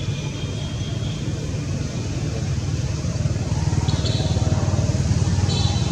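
Steady low rumble of a motor vehicle's engine, growing a little louder in the second half. Short high chirps about four seconds in and again near the end.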